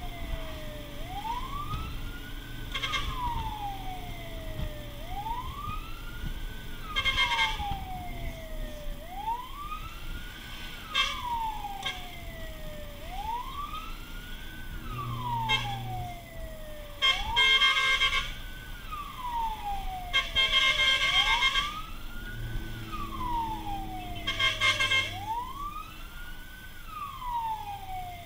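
Fire truck siren wailing, its pitch climbing quickly and then sinking slowly, once about every four seconds, heard from inside the cab. Short horn blasts cut in over it several times and are the loudest sounds.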